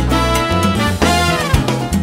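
Upbeat background music with a busy bass line and horn-like lead notes, one of which slides down in pitch about a second in.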